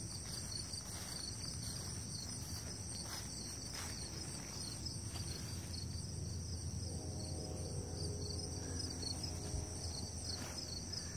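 A steady chorus of late-summer insects keeps up a high, continuous trill with a fast pulse in it. A faint low droning hum runs underneath and grows a little stronger in the second half.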